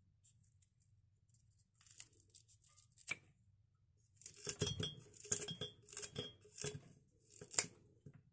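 Kitchen scissors snipping through a lemongrass stalk: a few soft cuts, then a run of about five sharp snips roughly every two-thirds of a second, the last the loudest, with light clinks of cut pieces dropping into a glass jar.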